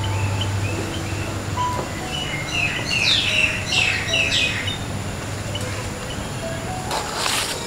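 Wild birds chirping and calling, with a louder run of short, quick down-sweeping calls about three to four seconds in. A short burst of noise follows near the end.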